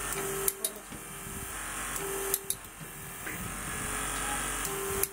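Electric torque wrench running on a high-strength friction-grip bolt's nut during second-stage tightening, a steady motor hum that slowly grows louder. A short steady tone comes and goes several times, and there are a few sharp clicks.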